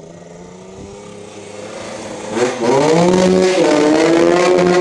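Yamaha DT125RE two-stroke single with a Giannelli aftermarket exhaust, running quietly at first, then accelerating hard from about two seconds in. It gets much louder and higher in pitch, dips briefly about halfway through, then climbs again, as the bike rides under a concrete overpass.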